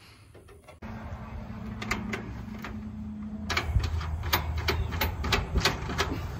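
Sharp metallic clicks and clinks, several a second, from bolting together the galvanized steel hopper panels of a grain bin. A steady low hum runs underneath.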